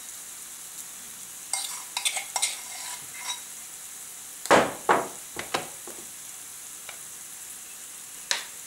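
Olive oil sizzling steadily in a stainless steel frying pan with sliced green peppers and onions as garlic paste is spooned in. A spoon knocks and clicks against the pan several times, loudest twice about halfway through.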